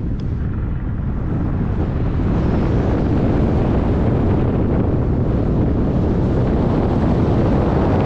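Wind rushing over a pole-mounted camera's microphone during a tandem paraglider flight: a loud, steady, deep rumble of air noise.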